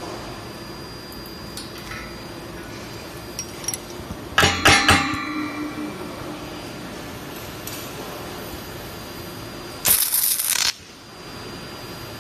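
A stud welder fires a weld on a 1/2-inch shear stud about ten seconds in: a loud burst of arc hiss that lasts under a second and cuts off sharply. About four and a half seconds in there is a cluster of loud metallic clinks and knocks that ring on briefly. A steady low hum runs underneath.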